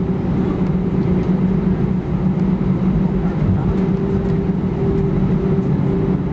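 Cabin noise inside an Airbus A319-131 on the ground just after landing: its IAE V2500 engines and airframe make a steady hum and rumble, with a low drone and its overtone holding level.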